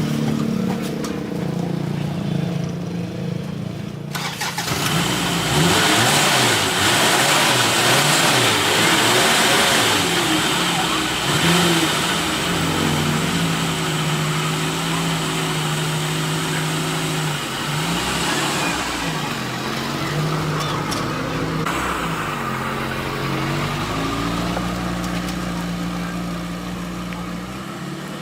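1986 Nissan Hardbody pickup's engine running. It picks up sharply about four seconds in, then revs with its pitch rising and falling, a sign the truck now runs after the no-start repair.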